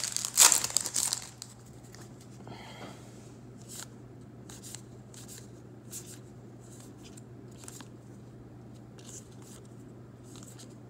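Trading card pack wrapper torn open with loud crinkling for about a second, then soft flicks of cards being thumbed through one at a time, about once a second.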